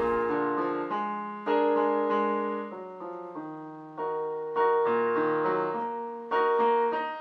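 Piano music: chords struck four times, about a second and a half to three seconds apart, each left to ring and fade, with lighter notes played in between.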